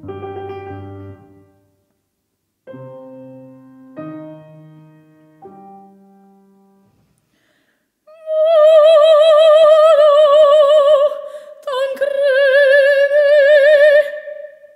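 Piano plays a few spaced chords that each fade away. About eight seconds in, a woman's operatic voice enters with two long held notes sung with wide vibrato, in an accompanied recitative.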